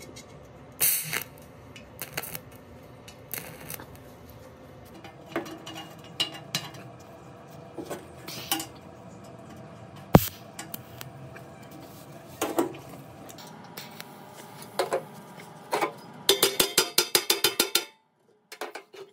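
Metal clinks, knocks and scrapes of hand tools working on small metal parts, scattered and irregular, ending in a quick run of about ten clicks a second.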